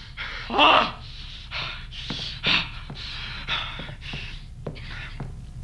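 A man breathing hard and gasping, in a quick string of short breaths about two a second.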